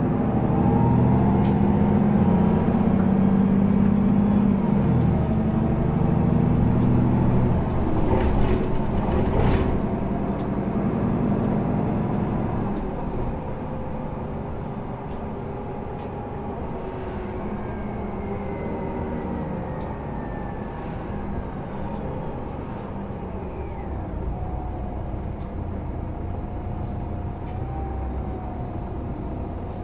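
Solaris Urbino 18 articulated city bus driving: the diesel engine pulls loudly for about the first twelve seconds, with a short hiss of compressed air about eight to ten seconds in, then it runs more quietly with a faint whine gliding in pitch.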